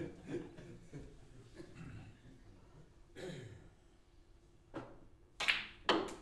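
Snooker shot: a light tap of the cue tip on the cue ball, then two loud, sharp clacks of snooker balls colliding, about half a second apart.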